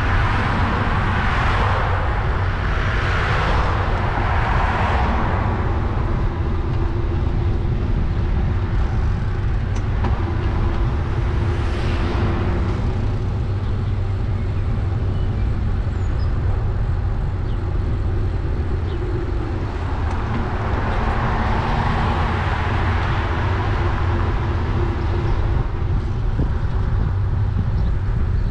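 Steady low rumble of a bicycle ride recorded on the bike, from wind and rolling tyres. Rushing noise swells and fades several times: near the start, about twelve seconds in, and again past the twenty-second mark, the way passing road traffic does.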